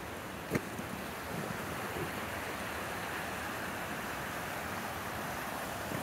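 Steady rushing of a mountain brook running among snow-covered rocks, an even hiss that grows a little fuller after about a second. A single crunching footstep in snow comes about half a second in.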